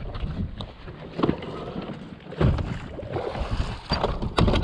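Wind buffeting the microphone on a bass boat's deck, with a few dull knocks and clatters as gear is handled. The rumble grows stronger about halfway through.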